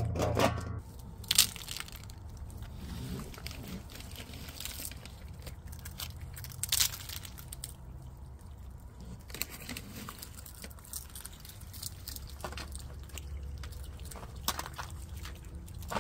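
Raccoons eating: scattered crunches, rustles and short clicks over a steady low hum, with the sharpest crunches about a second and a half in and near the middle.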